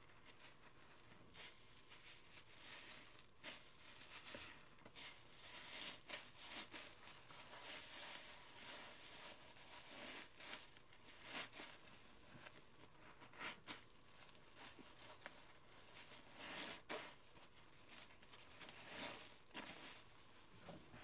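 Gloved hands squeezing and kneading a foam-soaked glitter scrub sponge in soapy lather: faint squelching and crackling of bursting bubbles in uneven surges.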